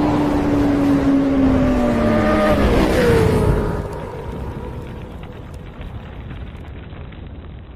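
Car engine sound effect: a single engine note sliding slowly lower, dropping sharply about three seconds in, then fading away.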